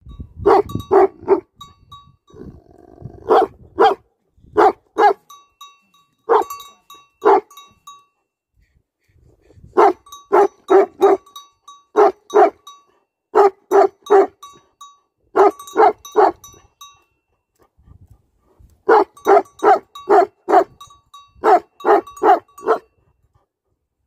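Young black-and-tan livestock guardian dog barking in quick runs of three to five barks, with short pauses between the runs.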